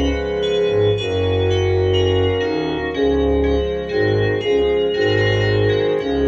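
Two-manual electronic home organ playing a traditional hymn: sustained chords over a bass line that moves to a new note about once a second.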